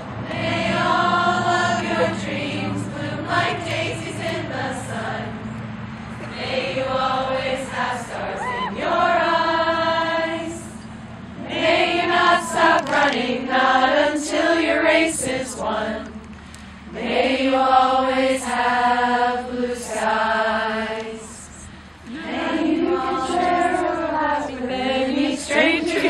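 A choir singing a slow song in long held phrases, with short breaths between phrases about two-thirds of the way through.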